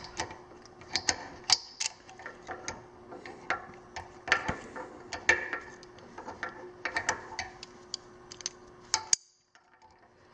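Irregular metallic clicks and taps of a Knipex plier wrench being handled, its jaws opened up and set onto a larger fitting. The sound drops out briefly about nine seconds in.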